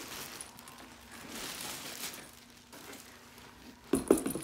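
Plastic wrapping and the fabric of a new softball bag rustling and crinkling as the bag is pulled free. About four seconds in come a few sharp knocks as the bag is set upright on the floor.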